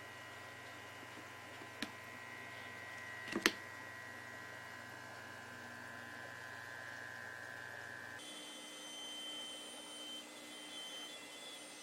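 Aquarium air blower running with a steady electric hum, with two sharp clicks in the first few seconds. The sound changes abruptly about eight seconds in.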